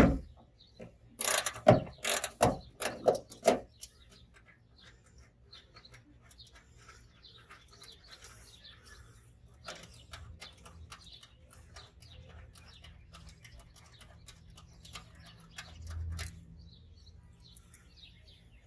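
Ratchet wrench with a 10 mm socket clicking as the tail-light nuts are backed off. A run of loud sharp clicks comes in the first few seconds, then quieter, scattered ticking.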